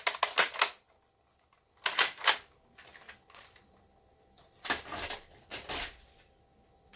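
Plastic clicks and clacks of a Nerf foam-dart blaster being worked and handled: a quick run of clicks at the start, a couple more about two seconds in, and a longer clatter about five seconds in.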